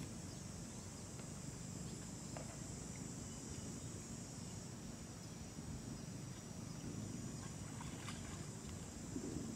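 Water buffalo grazing: occasional faint tearing and chewing of grass over a low steady rumble and a steady high hiss.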